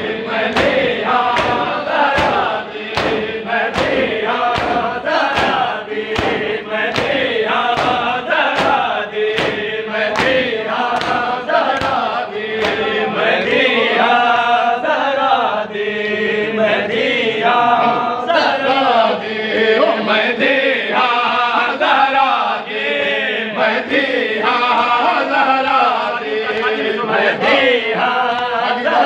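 A group of mourners chanting a noha together, with rhythmic chest-beating (matam) about two strikes a second. The strikes are plain in the first half, sink under the chanting in the middle and come back near the end.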